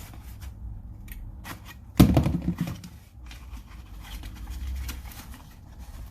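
A small cardboard box being opened by hand: scattered scraping, rustling and clicks of cardboard, with one sudden loud thump or rip about two seconds in.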